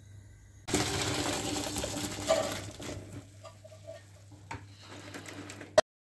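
Boiled broad beans and their cooking water poured from a pot into a plastic colander in the sink. A sudden rush of pouring water tails off after a couple of seconds into drips and light rattling of beans, and ends in a sharp knock.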